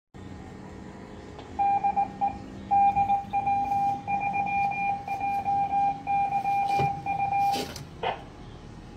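Morse code tone from an amateur radio: a steady high beep keyed on and off in short and long elements for about six seconds, followed by a couple of sharp clicks near the end.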